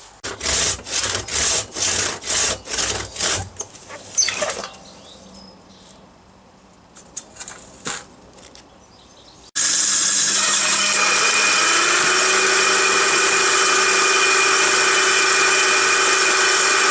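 Hand saw cutting eucalyptus wood in quick, even back-and-forth strokes for about three and a half seconds, followed by a few light knocks. Just past halfway a Stihl chainsaw cuts in abruptly and runs at a steady, loud speed.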